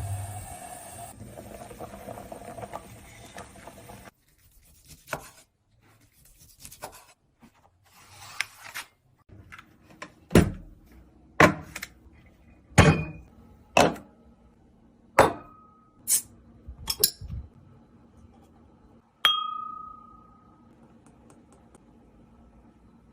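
Eating utensils clinking against a plate or dish, about ten sharp irregular clinks, the last one ringing briefly. This follows a fading hiss in the first few seconds.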